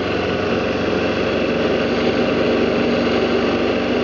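BMW G650GS motorcycle's single-cylinder engine running steadily at cruising speed, under a constant rush of wind and road noise from riding.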